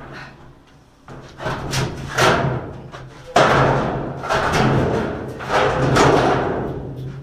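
Sheet-metal front panel of a washing machine being wrestled loose from its clips and metal tabs: a series of scraping, rattling knocks, each lasting about a second, over a steady low hum.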